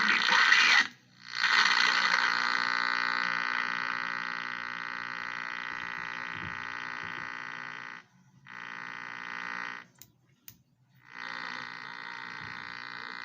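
Portable FM/AM radio's speaker giving out a steady, rough buzzing tone with static instead of a station, as if tuned between stations. It cuts out briefly about a second in, again near eight seconds, and for about a second near ten seconds.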